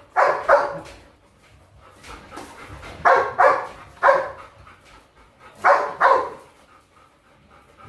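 Dog barking in three short bursts: two barks at the start, about four around three to four seconds in, and two more near six seconds.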